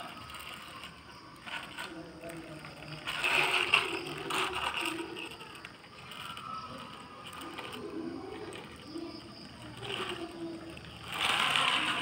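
Plastic toy dump truck rolling across a concrete floor, its plastic wheels rattling and grinding, loudest a few seconds in and again near the end.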